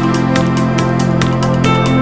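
Electronic background music with a steady quick beat over sustained synth chords.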